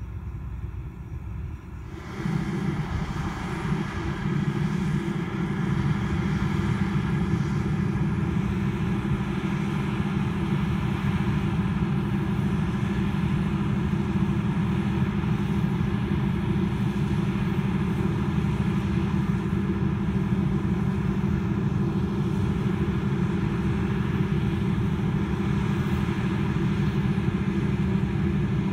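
Large diesel farm-machinery engine running steadily. It jumps in loudness about two seconds in, then holds a low, even rumble.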